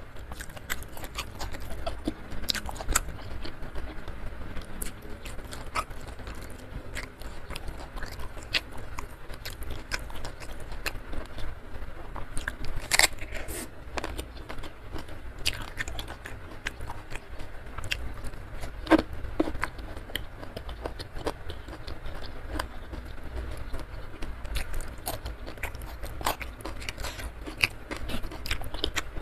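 Close-miked eating sounds: a person chewing food with her mouth, giving many irregular sharp wet clicks and crunches, a couple of them louder than the rest.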